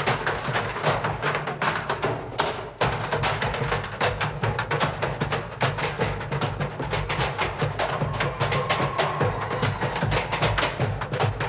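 Ensemble percussion played on found objects rather than drums: a fast, dense rhythm of sharp clacks and knocks over low thuds.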